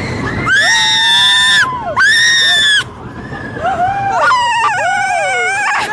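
Roller coaster riders screaming: two long, high screams in the first half, then several voices screaming together with a wavering pitch near the end, over the low rumble of the ride.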